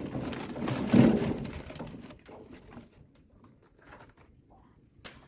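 Catch being tipped out of a fish trap: rattling and knocking over the first two seconds, then scattered small clicks and taps, with one sharp click near the end.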